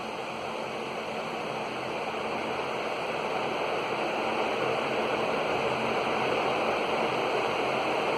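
Electric fan running at a raised speed: a steady rush of air with a faint low motor hum, growing slowly louder as the fan comes up to speed.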